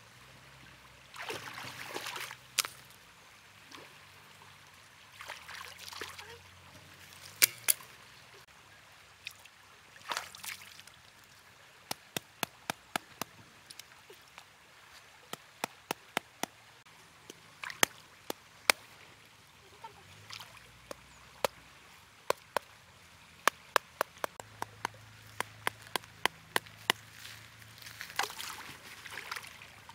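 Water splashing and sloshing as hands work in shallow river water at a bamboo-stake fish trap. Many sharp wooden clicks and knocks come in quick runs through the middle.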